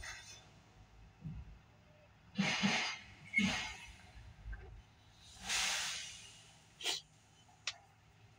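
A man's audible breathing: three noisy breaths about two and a half, three and a half and five and a half seconds in, the last one the longest, followed by two small clicks.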